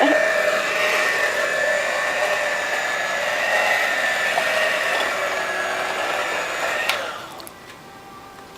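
Electric kitchen mixer running steadily at medium-low speed, beating a batter while a melted mixture is drizzled in, with a steady motor whine. It is switched off about seven seconds in.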